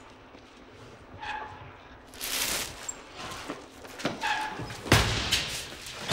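Household things in cardboard boxes and a small cabinet being carried and dumped against a wall: handling and scraping noise and scattered knocks, with a sharp thump about five seconds in.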